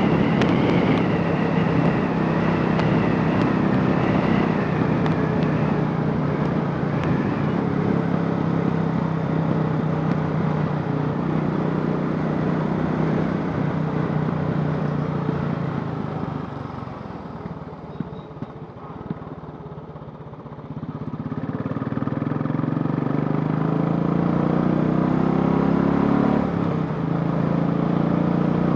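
Royal Enfield Classic 500's single-cylinder four-stroke engine, converted from fuel injection to a carburettor, running steadily. About two-thirds of the way through it quietens for a few seconds as the throttle is closed, then picks up again with rising pitch, with a brief dip near the end.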